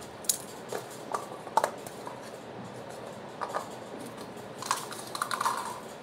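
Paper cups tapping and clattering on a hard floor: a run of light, irregular clicks and knocks, with a quick cluster near the end.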